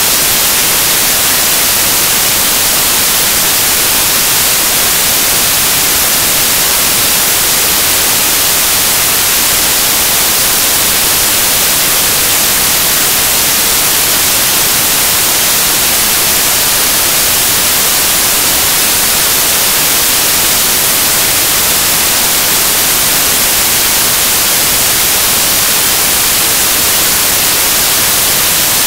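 Loud, steady static hiss, stronger in the treble, with no other sound in it.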